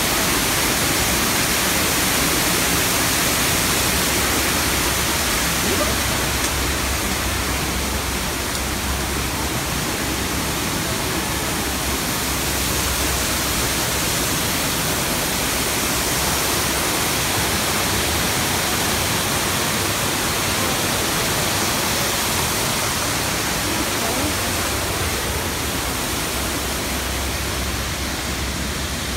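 Artificial waterfall pouring into a pond: a steady rush of falling water.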